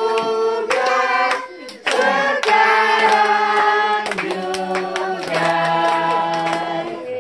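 A group of children and adults singing a birthday song together, with hands clapping along.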